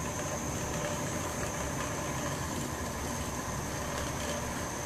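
Gas stove burner running under a covered pot, a steady, even rumble and hiss.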